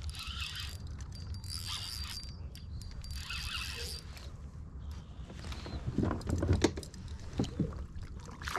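Spinning reel being cranked in three short bursts with a high whine as a hooked bass is reeled in. Then a spell of splashing and knocks, loudest a little after the middle, as the fish is brought alongside the kayak.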